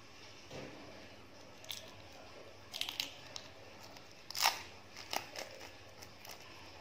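Eggshell of a balut (fertilized duck egg) being cracked and picked open with a metal spoon, heard close up as a run of sharp crackling clicks, the loudest about four and a half seconds in.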